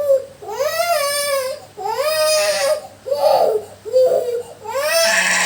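Small child crying hard during a massage, in several long rising-and-falling wails one after another with short sobbing breaths between.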